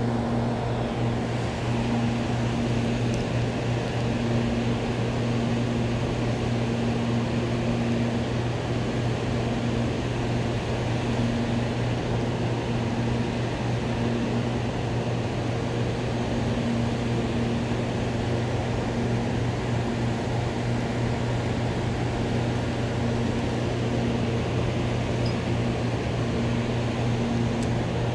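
Steady rush of water pouring through a dam's open floodgates, with a steady low hum underneath.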